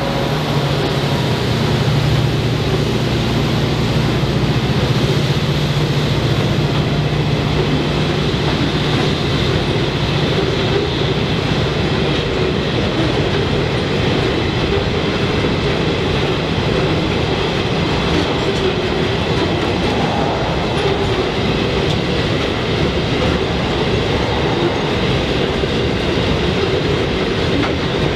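Loaded aggregate hopper wagons of a freight train rolling past, their wheels running steadily on the rails. A low hum is present at first and fades out after about twelve seconds.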